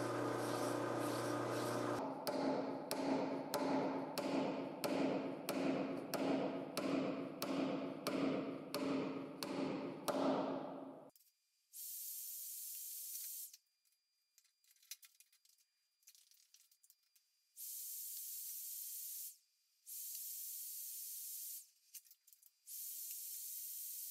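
A metal lathe spins a steel plumbing-pipe barrel while it is polished with abrasive cloth: a steady hum, then regular scraping strokes about one and a half a second. After that comes an electric welding arc in about five separate bursts of steady hiss, each a second or two long.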